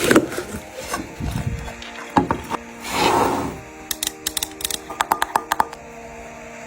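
Handling of a small gum tin and its packaging: a rustling scrape about three seconds in, then a quick run of sharp clicks and taps, over soft background music.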